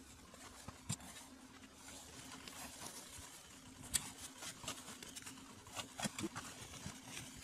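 Ice-fishing gear being handled and packed into a sled: rustling of the shelter's fabric with scattered knocks and clicks of gear, the sharpest click about four seconds in and a cluster of knocks near six seconds.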